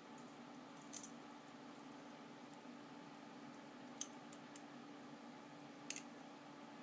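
A few light, sharp clicks of the small metal parts of a Benchmade Griptilian folding knife being handled and fitted together during reassembly: one about a second in, one about four seconds in and one near the end. A faint steady hum runs underneath.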